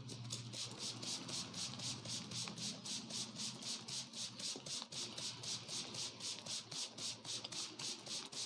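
Hands rubbing rapidly back and forth over hair and scalp in a head massage: an even, rhythmic swishing of about four strokes a second that keeps going throughout.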